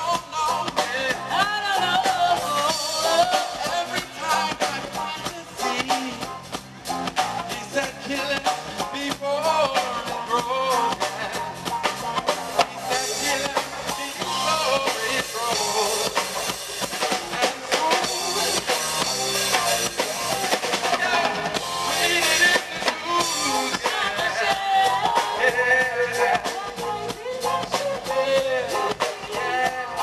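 Live reggae band playing through an outdoor PA: drum kit keeping the beat under bass and guitar, with a man singing into a microphone.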